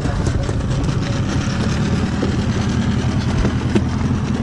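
Outboard motor of an inflatable boat idling steadily with a low, even drone.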